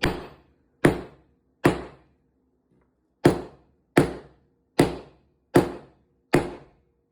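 A meat mallet hammering on a hard peach pit: about eight sharp, loud blows at a steady pace of just over one a second, with a brief pause after the first three. The pit is still holding together under the blows.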